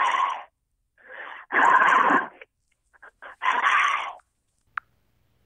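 A boy sobbing: three loud, wheezing, gasping breaths, the middle one the longest, followed by a short click near the end.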